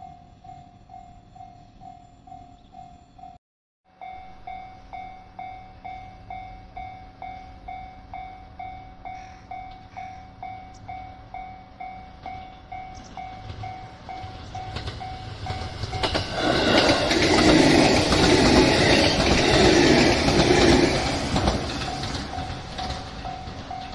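Japanese level-crossing warning bell ringing in a rapid, steady repeat, which drops out briefly a few seconds in. From about the middle on, an electric commuter train passes close by with a loud rumble and rail clatter that covers the bell, then fades near the end as the bell comes through again.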